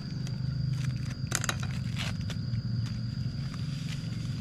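Small plastic seasoning sachets crackling as they are handled and opened, with a few sharp crinkles about a second and a half and two seconds in. Under them run a steady low hum and a thin, steady high tone.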